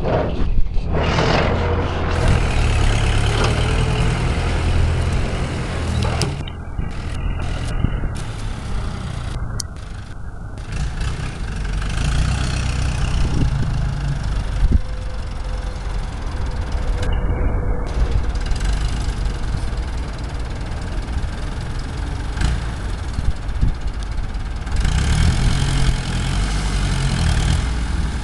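Engine of an old farm tractor converted into a forklift, running steadily with a low rumble as the tractor is driven and manoeuvred, a little fuller near the end.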